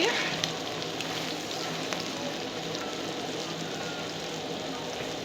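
Onion-and-egg omelette frying steadily in hot oil in a pan, its second side cooking just after the flip.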